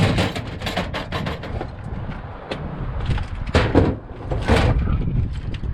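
A series of knocks and clatters, sharpest right at the start and at about three and a half and four and a half seconds in, over a steady low rumble.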